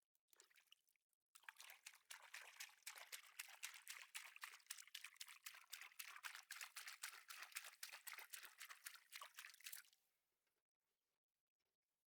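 Water splashing and pattering in a quick crackling run, starting about a second and a half in and stopping near ten seconds.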